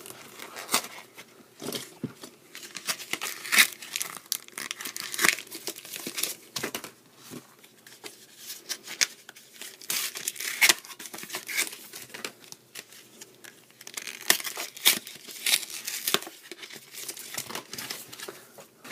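Pokémon booster pack's foil wrapper crinkling and tearing as it is opened, in irregular sharp crackles.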